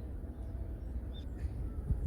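Forest ambience: a steady low rumble with one short, high bird chirp a little past a second in.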